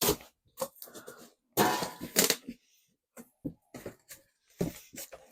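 Cardboard box being opened and handled: a run of short knocks and rustles, with a longer scraping, rustling stretch about two seconds in.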